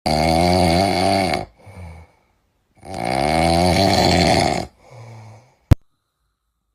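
Puppy snoring loudly: two long snores, each followed by a shorter, quieter breath, then a single sharp click near the end.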